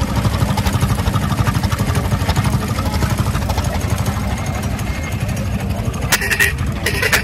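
An engine idling with a fast, uneven low throb, with a few short sharp sounds near the end.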